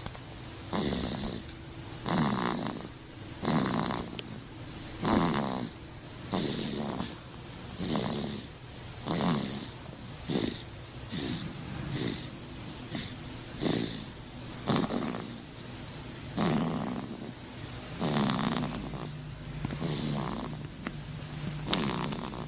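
Steady snoring in short, even snores, about one every second and a half, each with a high hiss on top. A small sharp click sounds near the end.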